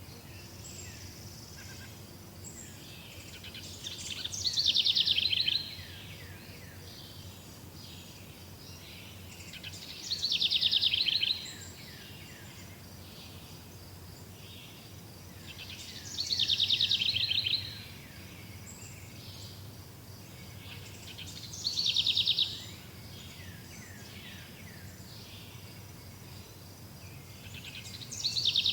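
A songbird singing the same short phrase over and over, about every six seconds: each phrase is a quick run of falling notes lasting about a second and a half. Other birds chirp faintly in the background between phrases.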